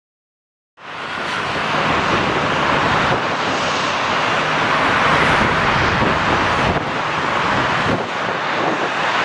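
Boeing 747-400 jet engines, a loud steady rushing roar that cuts in suddenly about a second in.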